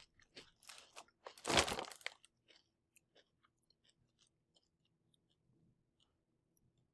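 Crunching and chewing of a light, crispy chicken-breast protein chip in the mouth, loudest about a second and a half in, then dying away to a few faint crunches.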